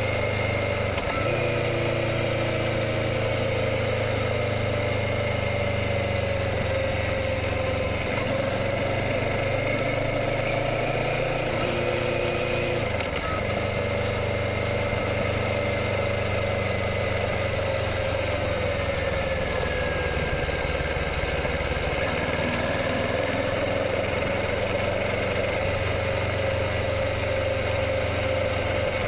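Kawasaki Ninja 650 parallel-twin engine running steadily, its pitch drifting gently up and down with small throttle changes.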